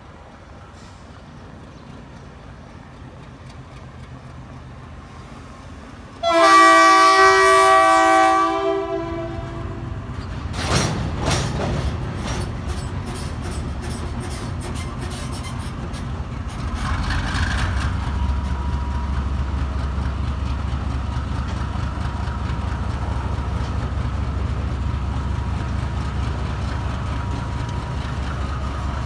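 A locomotive horn sounds one loud, long chord about six seconds in, over the low rumble of a passing freight train. Coal hopper wagons then roll by with a steady rumble and a run of clicks from wheels over rail joints, and a faint steady whine joins in later.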